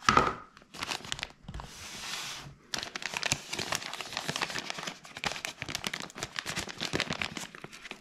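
A thin plastic protective bag crinkling as it is handled and unwrapped from around a small drone. A soft rustle comes first, then dense, irregular crackling from about three seconds in.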